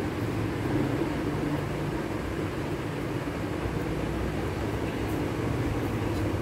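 Steady low hum with an even hiss over it, the running noise of a machine in the room, unchanging throughout.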